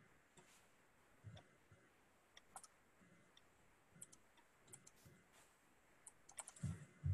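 Faint, irregular clicks of a computer keyboard and mouse being typed on and clicked, a little busier near the end.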